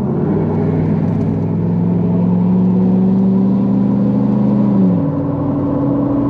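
2018 Ford F-250's 6.7-litre Power Stroke V8 turbodiesel accelerating, its pitch rising slowly, then dropping sharply about five seconds in, after which a steady hum carries on.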